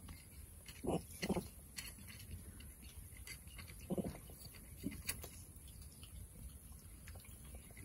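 Vervet monkeys calling faintly in short single calls, four in all: two about a second in and two more around four to five seconds.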